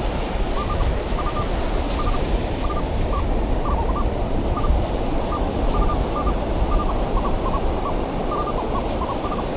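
Minelab Manticore metal detector sounding short, mid-pitched beeps, often in pairs, one or two a second, as it is swept over a small target the detectorist takes for a penny. A steady rush of surf runs underneath.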